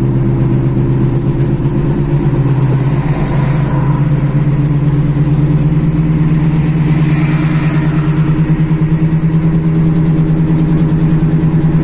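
A steady, pulsing 'vu vu' hum from the right wheel of a VW Transporter on the move, heard from inside the cab over the running engine. It is the sign of a failing wheel hub bearing, with a worn CV joint as the other suspect.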